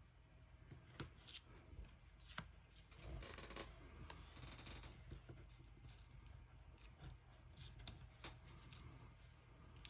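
Faint paper-crafting handling: a few sharp clicks and taps, and paper rustling or sliding for about a second a little past the middle, as paper pieces are picked up and arranged.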